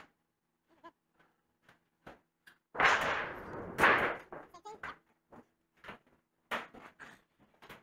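A large sheet of thin sheet metal flexing and rumbling as it is handled, loudest for about a second and a half near the middle, with scattered light knocks and taps before and after.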